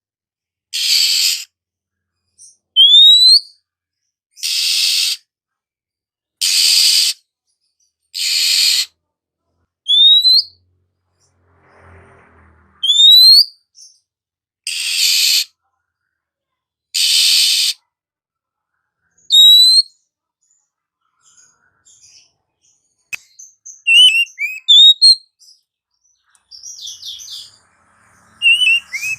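Oriental magpie-robin (kacer poci) calling: a short rising whistle alternates with a harsh, hissing rasp about every two seconds. Near the end it breaks into quicker, varied twittering chirps.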